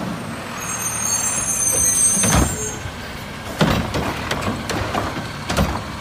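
Front-loading garbage truck's engine running as the cart-grabbing arm on its front container picks up and lifts a wheelie bin, with a brief high squeal about a second in and four clunks in the second half.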